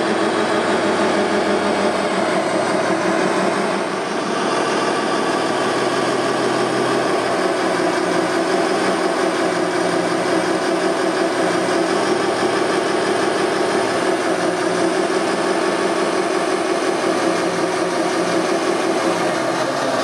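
Radio-controlled Komatsu WA600 wheel loader model running steadily, a continuous engine-like drone that dips briefly about four seconds in.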